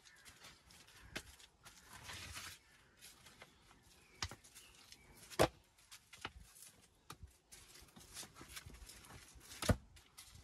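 Stones knocking and clacking together, with soil and grit scraping, as loose stone and earth are worked by gloved hands in a trench. Irregular sharp knocks throughout, a short scraping hiss about two seconds in, and the loudest knocks about five and a half seconds in and near the end.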